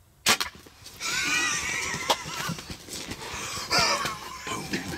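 Wild turkey gobbler fighting a decoy: a sharp hit about a third of a second in, then rough flapping and wavering calls that peak again near the end.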